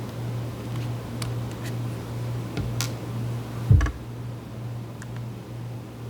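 Light clicks and ticks of a small precision screwdriver working Phillips screws out of a laptop's bottom panel, with one louder knock just before four seconds in, over a steady low hum.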